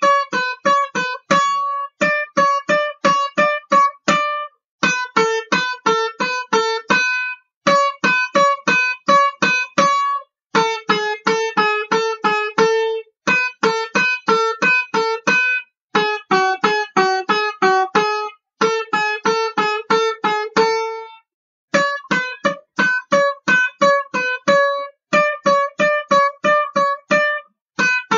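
Country banjo tune with no singing: quick runs of plucked notes in short phrases a couple of seconds long, each broken off by a brief gap.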